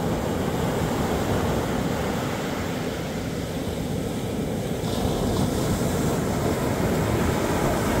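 Ocean surf: shallow waves washing up the sand and foam draining back, a steady rushing wash of water that swells slightly near the end.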